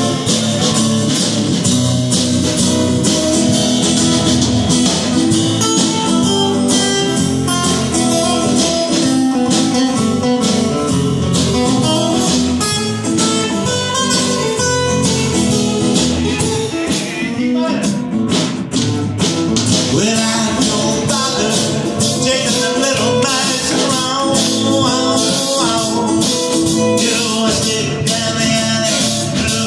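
Live band playing an instrumental break in a rockabilly tune: acoustic guitars strummed and picked over a drum kit keeping a steady beat with cymbals.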